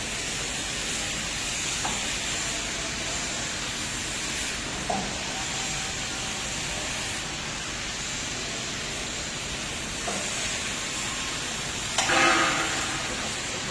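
Automatic pallet-wrapping machinery running with a steady hiss, with a few faint knocks and a louder clatter about twelve seconds in.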